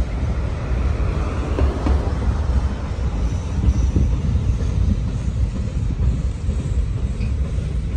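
Freight train of coal hopper cars rolling past at steady speed: a continuous low rumble with the rattle of steel wheels on the rails.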